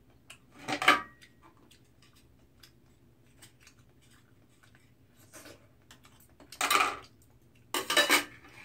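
A spoon scraping cooked oyster meat out of its shell, with oyster shells clattering on a metal tray. There are small clicks throughout and louder scrapes about a second in and twice near the end.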